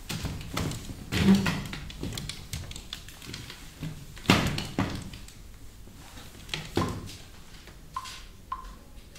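Scattered knocks and thumps of chairs and props being moved and set down on a stage in the dark, loudest about four seconds in. A few short light pings near the end.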